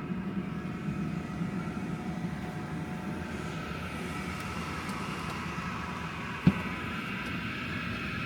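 An HVAC indoor air handler running steadily, a hum with a few steady whining tones over it. A single sharp click comes about six and a half seconds in.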